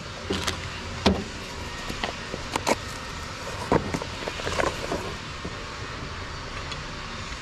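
Cardboard parts boxes being opened and handled, a plastic bag rustling and a new steering tie rod end knocking lightly as it is taken out, heard as a scatter of short clicks and rustles over a steady low hum.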